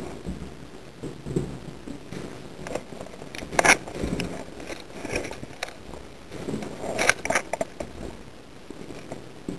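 Scuffing, rustling and scattered sharp clicks of a player moving through a dark room in gear, with two louder clusters of sharp cracks about three and a half and seven seconds in.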